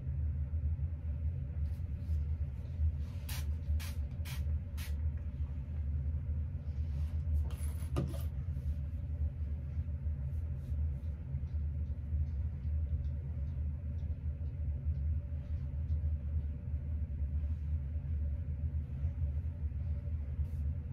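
Electric fan running with a steady low hum. Over it, a few short hissing sprays from a facial setting-spray bottle, four quick ones about three to five seconds in and one a little longer near eight seconds.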